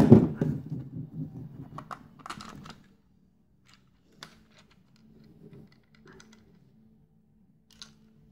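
A screwdriver set down on a table with a sharp knock, followed by a few seconds of clicks and rattles from the plastic case of a handheld multimeter being handled, then only a few scattered small clicks as its case halves are eased apart. A faint steady hum lies underneath.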